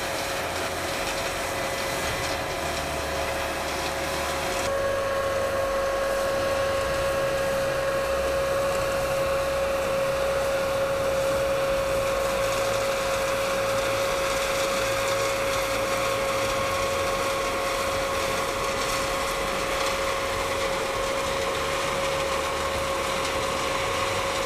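Combine harvester running steadily while harvesting corn: a constant mechanical whine over an even rumble.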